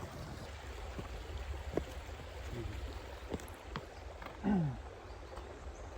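Faint flowing water of a small desert stream over a steady low rumble, with a few small clicks. About four and a half seconds in, a man's voice gives one short falling hum.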